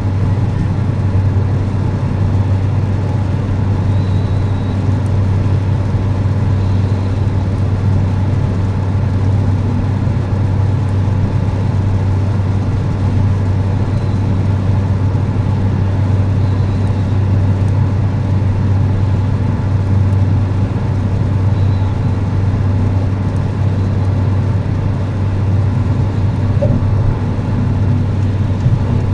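Steady road and engine noise inside a car's cabin at motorway speed: a constant low drone with no change in pace.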